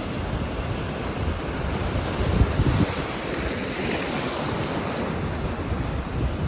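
Atlantic ocean surf breaking and washing up the beach, swelling briefly about halfway through, with wind buffeting the microphone.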